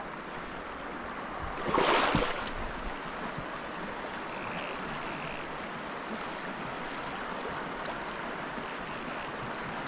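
River water flowing over a rocky bed, a steady rush close to the microphone, with a brief louder surge of water noise about two seconds in.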